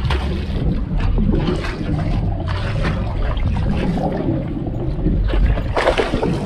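Water rushing and bubbling around an underwater camera as it is pulled through the sea. The sound is muffled, over a steady low rumble, with a few louder bubbling swells, the strongest near the end.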